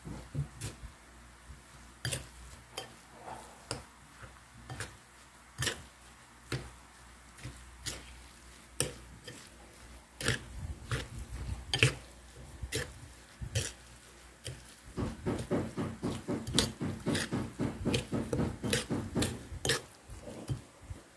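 Metal spoon clinking and scraping against a ceramic bowl while stirring a wet mix of grated sweet corn, young coconut strips and brown sugar. The clinks are spaced out at first, then come fast and close together for the last several seconds.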